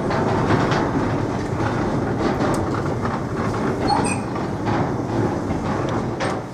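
Goods wagons and a brake van rolling past on jointed track, a steady rumble with the clickety-clack of wheels over the rail joints, fading as the last vehicle goes by near the end.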